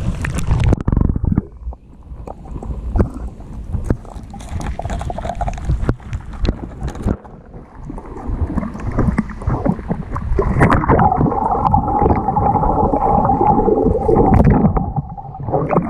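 Water sloshing and gurgling around a camera dipped at the surface and then held under water, the sound going muffled as it submerges. In the second half a steady droning tone comes in under the water.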